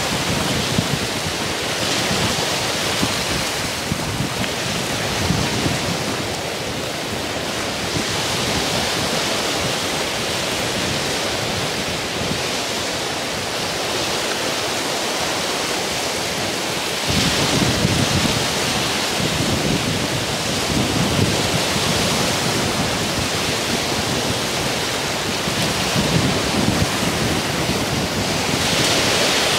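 Wind-driven waves breaking steadily on a rocky lakeshore, with gusty wind buffeting the microphone, strongest a little past halfway and again near the end.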